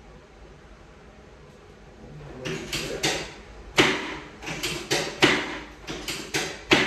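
Chiropractic drop table's sections clunking: a quick run of about a dozen sharp knocks, starting about two and a half seconds in.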